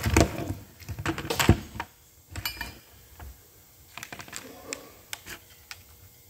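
Irregular clatter of metal motor parts and tools being handled: quick clicks and knocks, loudest in the first two seconds, with a brief metallic ring about two and a half seconds in and scattered lighter clicks after.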